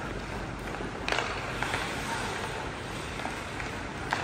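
Youth ice hockey play: a steady rink hiss of skate blades scraping the ice, with sharp clacks of sticks and puck, one about a second in and one near the end.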